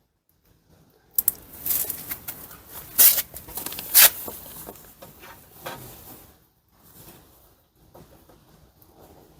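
Clicks, knocks and rustling of parts being handled and fitted in a car door, with two sharper knocks about three and four seconds in, then quieter handling.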